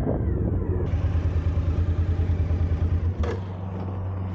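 Suzuki V-Strom's V-twin motorcycle engine idling with an even, pulsing beat. About three seconds in there is a click and the sound settles into a steadier hum.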